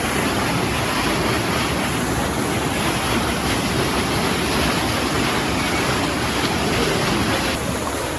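Water bubbling and gurgling hard, a steady, dense churning.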